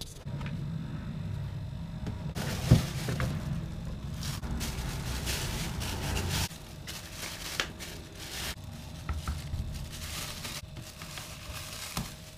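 Clear plastic bag of desk-lamp parts being handled, rustling and crinkling in two long spells, with a sharp knock a few seconds in and a few smaller clicks.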